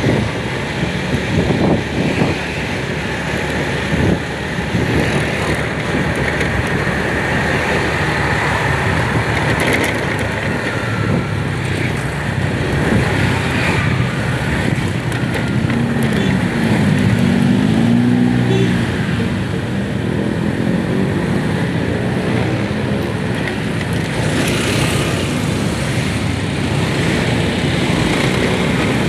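Road vehicle travelling, with a steady engine and road rumble; about halfway through, an engine's pitch rises and falls.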